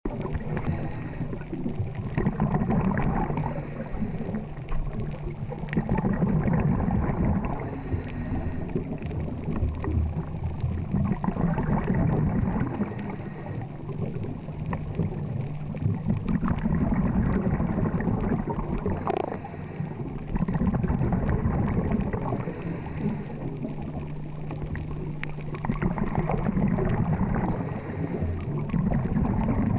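Underwater sound of a scuba diver breathing through a regulator: exhaled bubbles rushing and gurgling in swells every four to five seconds, with a low steady hum underneath at times.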